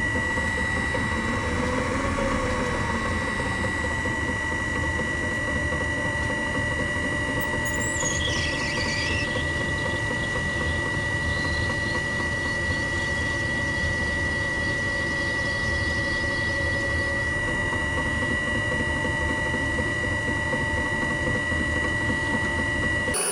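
Electric motor of a workshop machine tool running steadily, with a constant high whine over a continuous rumble. A brief higher squeal comes about eight seconds in.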